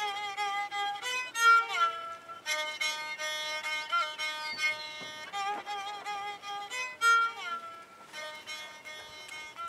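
Violin music: a melody of wavering held notes with slides between pitches.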